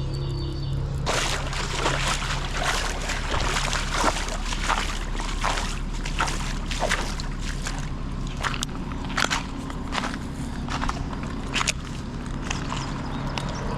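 Footsteps sloshing and squishing through shallow creek water or wet ground, about two steps a second; they start about a second in and stop near the end.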